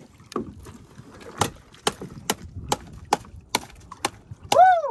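A steady series of sharp wooden knocks, about two or three a second, on the hull of a wooden outrigger boat as a freshly landed yellowfin tuna is dealt with on board. Near the end comes a short voice call that rises and falls.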